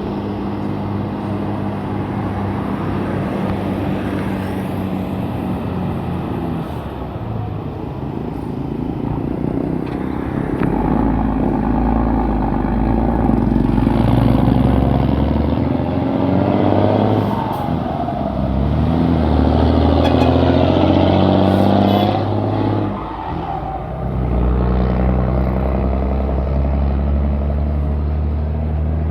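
Mercedes-Benz 1518 truck's diesel engine running, revved up and down several times from about a third of the way in, dipping briefly about three-quarters through, then settling back to a steady run.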